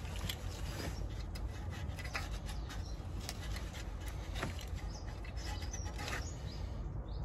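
Quiet spell: a few faint light clicks of a 5mm Allen key socket against metal as it is fitted to the ABS wheel speed sensor's bolt, over a low steady hum, with faint bird chirps.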